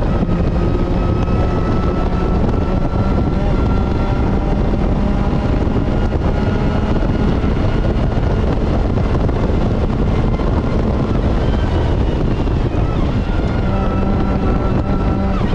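Supercharged Mazda MX-5 NB four-cylinder engine running hard at fairly steady high revs on track, over heavy road and wind rumble.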